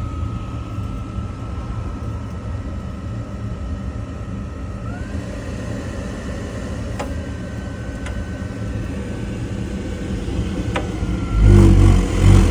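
Rinnai tankless water heater running under high demand: a steady low rumble with a steady high whine that glides up in pitch about five seconds in, a few light clicks, and two loud low bumps near the end. The unit is blowing out its flame with two faucets open, more than likely from a venting issue that lets intake and exhaust air mix.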